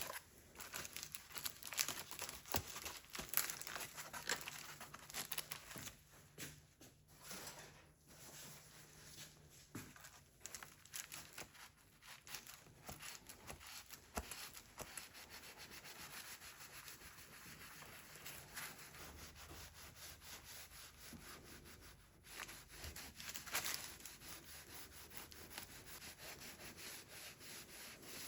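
Hand rubbing on a Stihl chainsaw guide bar's steel surface: irregular scraping strokes in the first half, settling into steadier, fainter rubbing later on.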